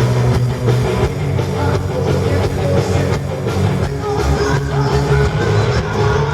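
Heavy metal band playing live, loud and continuous, with electric guitars, bass and steady drum hits.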